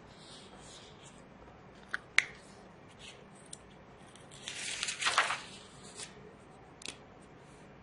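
Paper and marker sounds from working through a textbook: short scratchy marker strokes on the page, a few sharp clicks, and a longer paper rustle about four and a half seconds in.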